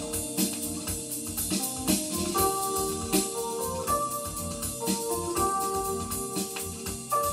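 A vinyl record playing on a Linn Axis turntable through hi-fi loudspeakers: music of held keyboard-like notes that step up and down in pitch over a steady beat.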